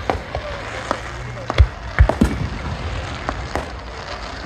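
Aerial fireworks going off: a string of sharp bangs and crackles, the loudest being three deep booms in quick succession between about one and a half and two and a quarter seconds in.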